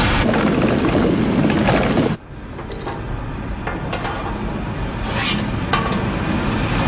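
Sound-designed machine noises: a dense mechanical rush that cuts off suddenly about two seconds in, then quieter clicks and clinks of small moving parts.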